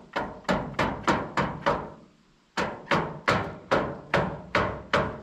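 Rapid repeated blows on a stuck trailer tailgate, about three a second, in two runs with a pause about two seconds in: it is being banged at to get it open, and it does not open this way.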